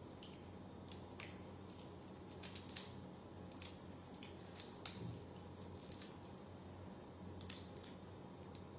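Faint, scattered crackles and clicks of boiled shrimp shells being cracked and peeled by plastic-gloved hands, over a faint steady low hum.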